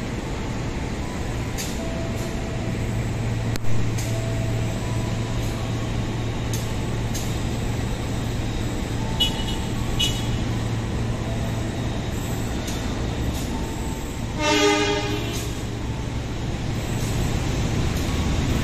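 Train approaching a station, sounding one short horn blast about fourteen and a half seconds in, over a steady low hum. A few faint clicks come earlier.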